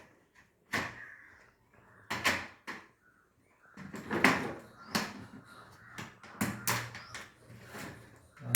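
Hard plastic parts of an LED bulb knocking and clicking as they are handled and fitted together, a string of short sharp knocks at uneven intervals.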